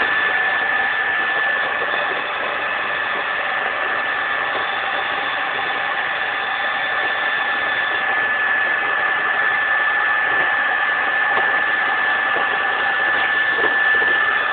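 Carpet-cleaning extraction machine running steadily: a constant high whine over an even rushing hiss.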